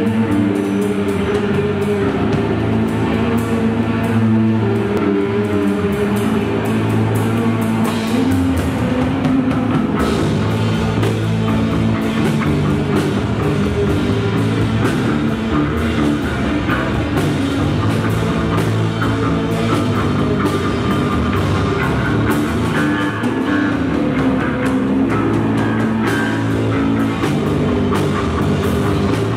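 Stoner rock band playing live: electric guitar, bass guitar and drum kit. The cymbals come in fuller about eight to ten seconds in.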